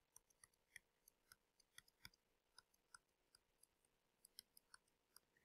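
Faint, irregular clicks and taps of a stylus touching down on a writing surface while handwriting an equation, several a second.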